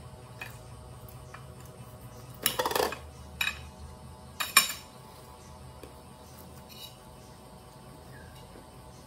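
A metal knife and kitchen things clinking against a ceramic plate and a plastic hand citrus juicer as oranges are cut and squeezed: a short rattling clatter about two and a half seconds in, another knock a second later, and a sharp clink near the middle, the loudest.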